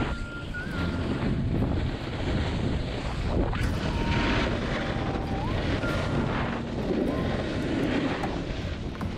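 Wind rushing over the microphone while a snowboard slides and scrapes across packed snow, the scraping swelling and fading every second or two as the rider carves turns.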